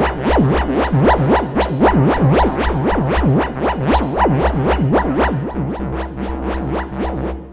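Electronic music sequenced from samples in the Koala Sampler app: a deep bass line under fast repeating sweeps, about four a second, from a flanger effect that gives the bass a didgeridoo-like sound. The sweeps thin out after about five seconds.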